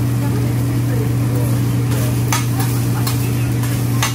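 Hibachi chef's metal spatulas clinking and scraping on the flat-top griddle, with a few sharp clacks in the second half, over a steady low hum.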